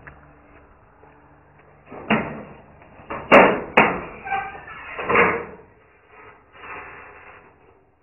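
Sheet-metal door being unlatched and pushed open, with a run of loud bangs and clatters about two to five seconds in and a brief squeak among them, then lighter rattling.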